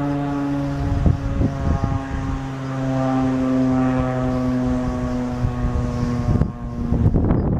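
Federal Signal STH-10 electromechanical tornado siren sounding its steady tone during a test, its loudness slowly rising and falling. Its pitch dips slightly near the end.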